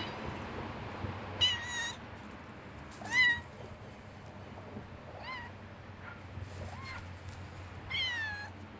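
Stray cat meows, about five separate meows spread over several seconds, some rising then falling in pitch, the loudest about three seconds in.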